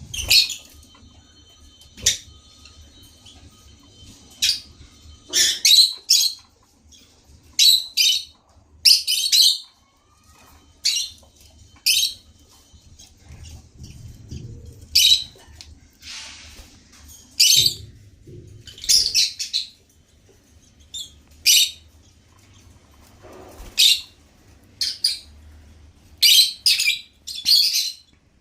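African lovebirds chirping: short, high-pitched calls at irregular intervals, often two or three in quick succession.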